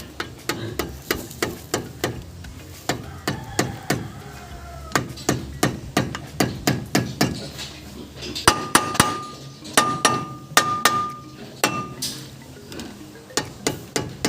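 Repeated hammer blows on metal, irregular and sharp, with a few strikes in the second half ringing with a clear metallic tone.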